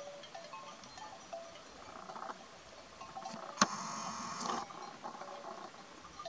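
Livestock bells on a grazing flock, tinkling irregularly as the animals move. About three and a half seconds in, a sharp click is followed by a louder, rougher sound lasting about a second.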